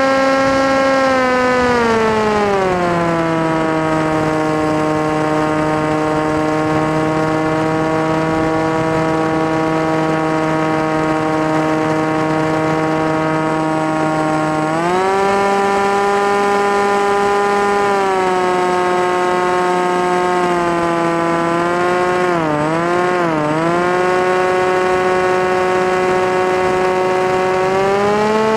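FPV model aircraft's motor and propeller droning at a steady pitch that changes with the throttle. The pitch drops a couple of seconds in, rises about halfway through, wavers up and down briefly around three-quarters of the way in, and rises again near the end.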